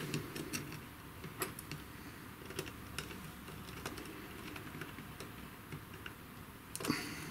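Faint, irregular small clicks and taps of fingers and a small screwdriver working the screw terminals of a CNC controller board as wires are fastened in.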